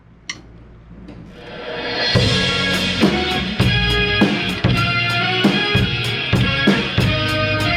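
A rock band starts playing: after a brief quiet moment with a single click, drums come in about two seconds in with a steady beat of kick, snare and cymbal hits over sustained electric guitar chords.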